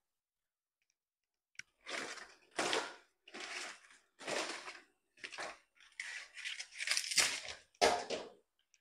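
Fresh banana leaves rustling and crackling as they are handled, in a string of short bursts about half a second each, starting a couple of seconds in.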